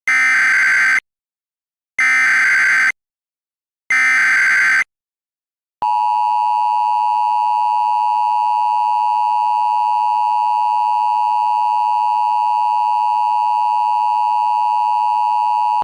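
Emergency Alert System tones: three one-second bursts of SAME header data, about a second apart, then after a short gap a steady, loud two-tone attention signal that holds for about ten seconds and stops abruptly. Together they signal an incoming emergency alert.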